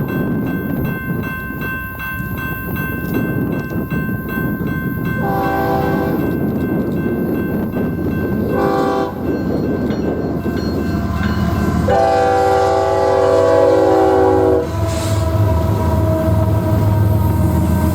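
Diesel freight locomotive sounding its multi-chime horn over the rumble of a passing train. There is a long blast about five seconds in, a short one near nine seconds, and a longer, loudest one a few seconds later. With a long blast just before, this makes the long-long-short-long pattern of a grade-crossing warning.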